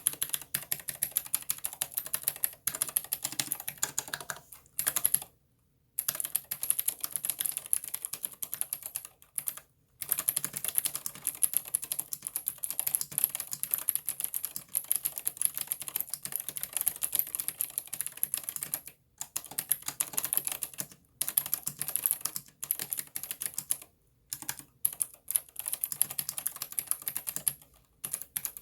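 Typing on a Ninja87 ALU XO aluminium-case mechanical keyboard fitted with clicky blue switches and Cherry-profile PBT keycaps. The keys give sharp, crisp clicks in quick succession, with several brief pauses in the typing.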